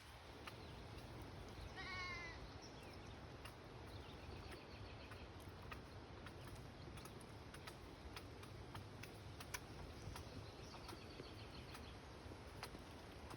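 Muscovy ducklings peeping faintly. One clear, wavering peep bends slightly downward about two seconds in, and a few fainter, higher peeps follow later. Small soft clicks are scattered throughout.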